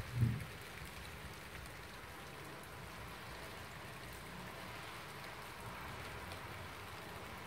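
Steady hiss of wet precipitation falling, with faint scattered ticks of drops. A single low thump sounds just after the start.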